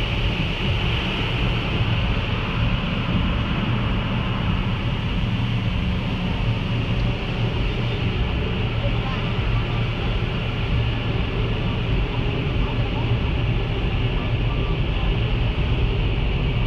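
Automatic car wash heard from inside the car: a steady rush of water jets spraying and sheeting over the windshield and body, with the low rumble of the wash machinery.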